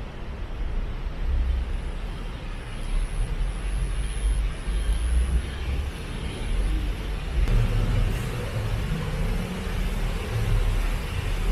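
Road vehicle noise: a steady low rumble of motor traffic, with an engine hum coming up about seven and a half seconds in.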